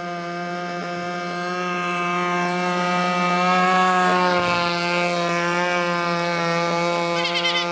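RC speedboat running flat out on an 80 mm test propeller: a steady, high-pitched motor whine. It swells to its loudest as the boat passes close about four seconds in, the pitch dipping slightly as it goes by, then eases off as the boat runs away.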